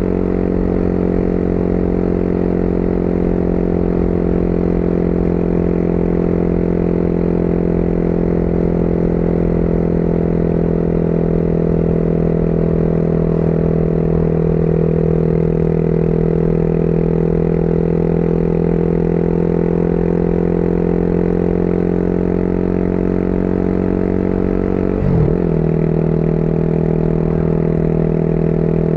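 Motorcycle engine running steadily while riding, its note rising slowly over the middle. Near the end the note dips and recovers briefly, like a gear change, then holds steady again, over a low rumble of wind and road.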